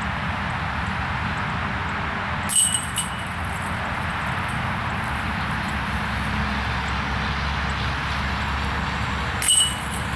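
Two sharp metallic clinks, about seven seconds apart, each with a brief ringing, typical of a disc hitting the chains of a disc golf basket, over a steady outdoor background hiss.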